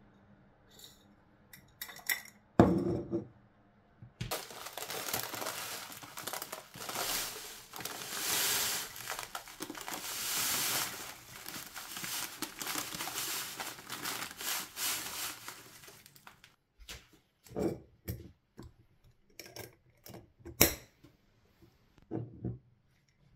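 Baking paper crinkling and crackling as it is lifted off a baking tray and folded, with baked granola clusters pouring and rattling through it into a glass jar, for about twelve seconds. Before it, a few clicks and one sharp thump; after it, a string of separate light clicks and knocks.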